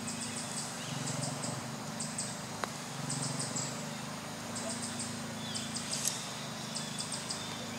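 Forest ambience: short high chirps in quick groups of four or five, repeating about every second, over a low steady hum, with one sharp click a little over two and a half seconds in.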